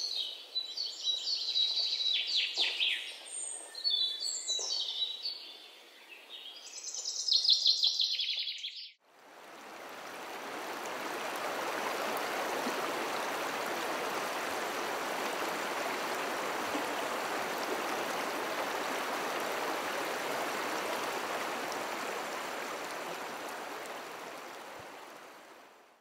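Songbirds singing in quick, high notes for about nine seconds. Then an abrupt change to the steady rush of river rapids over rocks, which runs on evenly and fades out just before the end.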